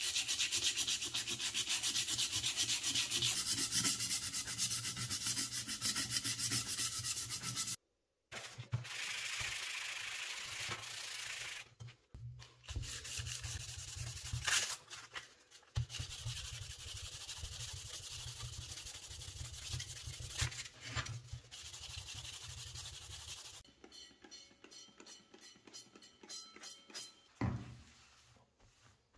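Abrasive rubbing and scraping on the slicer's parts, in several short stretches that cut off and restart suddenly, quieter and sparser towards the end.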